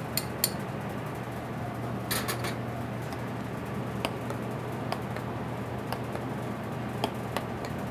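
Metal spoon stirring melted butter and garlic in a ceramic ramekin, giving a few scattered light clinks and scrapes, with a small cluster about two seconds in. A steady low hum of kitchen ventilation runs underneath.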